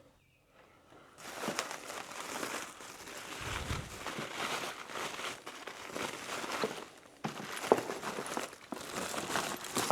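Packaging rustling and crinkling, with small knocks and clicks, as a packed compartment is opened and hoses are pulled out. The rustling begins about a second in.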